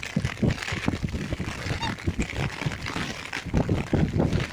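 Wind buffeting the microphone in low, ragged gusts, with one short high-pitched call from a black swan about two seconds in.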